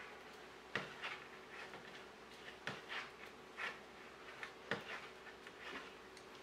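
Knitting needles clicking and tapping faintly while stitches are knitted off a cable needle, with soft rubbing of the wool yarn; the sharpest clicks come about a second in, near three seconds and near five seconds.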